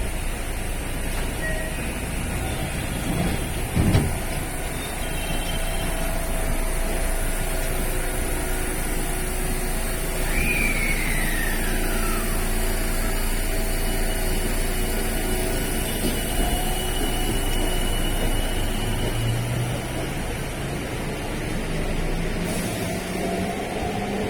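An electric train at a station: a steady hum and rumble with several held tones, a sharp thump about four seconds in, a short falling squeal near the middle, and tones climbing in pitch near the end.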